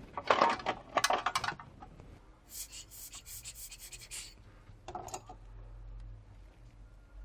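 Small repair tools clicking and clattering, then about two seconds of fast, fine scratching, as of debris being picked out of a phone's charging port, and a few more clicks.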